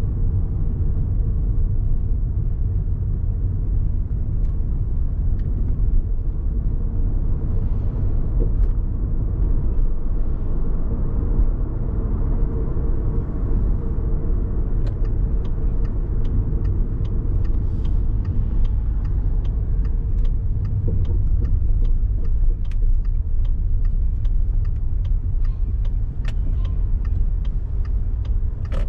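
A car driving on city streets with a steady low rumble of engine and tyres. About halfway through, a fast, regular ticking starts, roughly two to three ticks a second.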